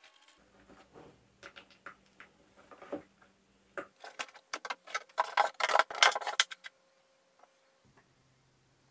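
A hand scooping wet gypsum plaster out of a plastic tub: a run of wet clicks and knocks against the plastic, sparse at first, then quick and loudest around the middle, stopping about two-thirds of the way through.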